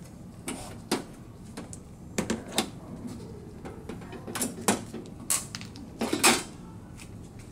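Handling noise of scattered clicks and knocks as a cordless drill is set down and a DTG printer's sheet-metal side panel is worked loose by hand. The loudest knocks come about five to six seconds in.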